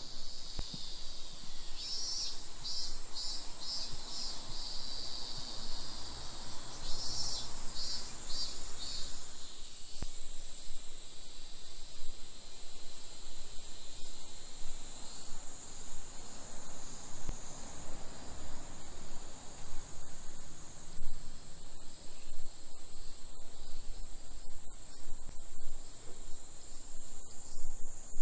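Cicadas singing in a steady high drone. A second, pulsing call repeats about three times a second over it for the first nine seconds or so.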